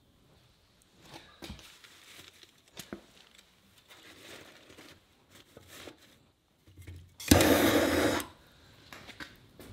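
Split wood and kindling being set into a cast-iron wood stove's firebox, with light knocks and rustling. About seven seconds in, a handheld propane torch hisses loudly for about a second as it lights the fire.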